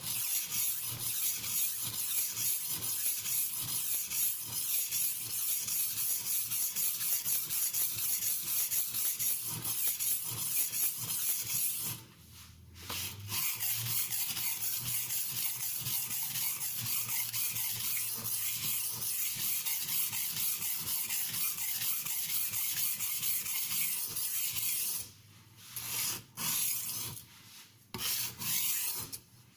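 Victorinox santoku blade being stroked back and forth on an oiled Norton India medium oilstone: a steady scraping rasp of steel on stone. It pauses briefly about twelve seconds in and stops in several short gaps near the end.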